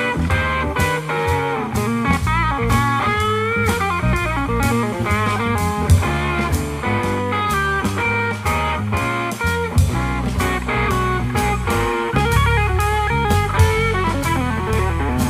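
A jazz-fusion trio playing: a Stratocaster-style electric guitar plays a single-note lead line with bent, wavering notes, over electric bass and a drum kit.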